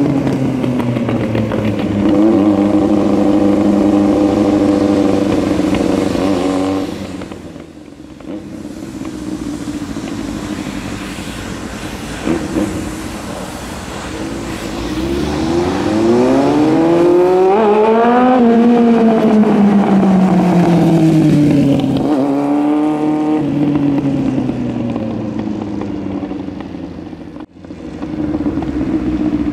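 Yamaha R1 sportbike's inline-four engine running under way, its pitch rising and falling with the throttle. It fades for a while, then climbs in one long rising rev to a peak about halfway through and drops away again.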